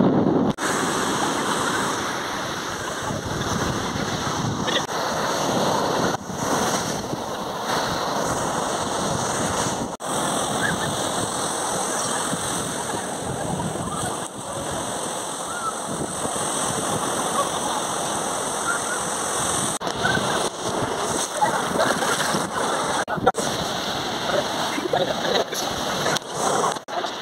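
Sea surf breaking and washing up a sandy beach: a steady rushing noise, broken off sharply a few times.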